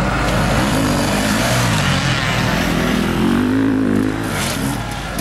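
Motocross bike engines revving hard, their pitch rising and falling as the bikes take a jump, with a second bike's engine further off.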